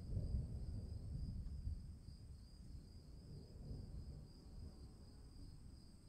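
Low rumble of distant thunder, strongest in the first two seconds and then dying away, over steady chirping of crickets.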